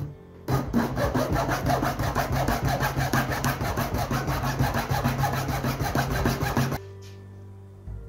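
Junior hacksaw sawing kerfs across the spine of a clamped stack of paper signatures, cutting the grooves for the sewing stations. It makes quick back-and-forth rasping strokes that start about half a second in and stop shortly before the end.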